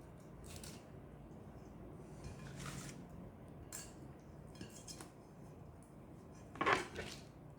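Kitchen utensils and dishes clinking and scraping lightly as food is handled, with a louder scrape about a second before the end.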